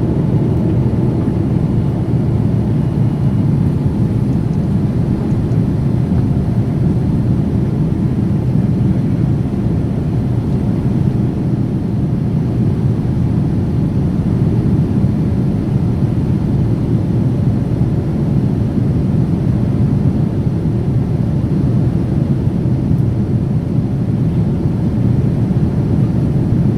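Boeing 787 jet noise: a steady low drone of engines and rushing air that holds even throughout.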